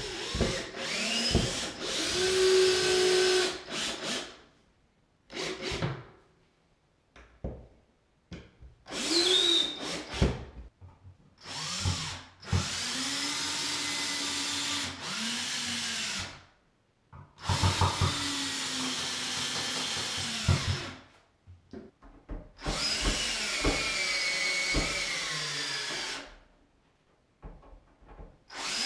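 Cordless drill driving screws in a series of separate runs, each lasting a second to a few seconds. The motor speeds up and slows down within each run, and there are short quiet gaps between them.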